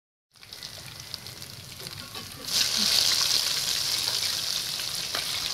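Fish frying in hot coconut oil in a kadai, the oil sizzling with scattered crackles. The sizzle starts faint and turns much louder about two and a half seconds in.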